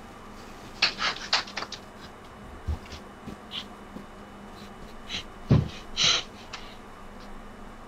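A child's quick, panting breaths and footsteps while hurrying up a staircase, heard through a home security camera's microphone, with a heavier thud about five and a half seconds in.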